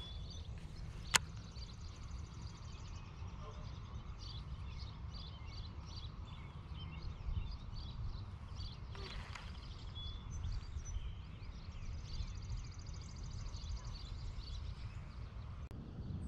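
Birds chirping and singing outdoors, many short calls and a few trills, over a steady low rumble. A single sharp click comes about a second in.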